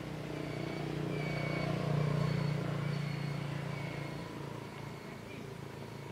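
A motor vehicle passing nearby, its low engine hum swelling to a peak about two seconds in and then fading away.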